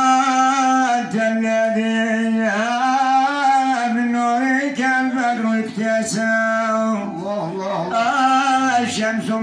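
A man singing a Moroccan Sufi madih, a praise song for the Prophet, solo into a microphone in long held, wavering notes with short breaks between phrases.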